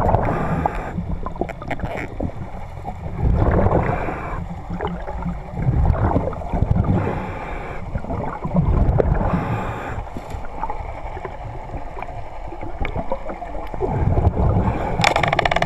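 Muffled underwater water noise: rushing and gurgling as the camera moves through the water, swelling and easing unevenly.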